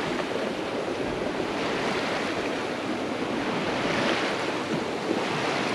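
Fast tidal current rushing past a sailboat's hull: a steady wash of moving water, swelling a little now and then, with some wind on the microphone.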